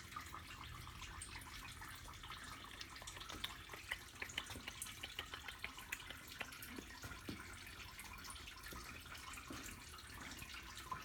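Faint, irregular small clicks and taps of hand tools and small metal parts being handled while fittings are disconnected, over a low steady hum.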